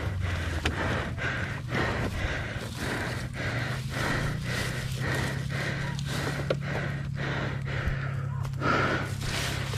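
Fast, heavy panting close to the microphone, about three breaths a second, over a steady low hum.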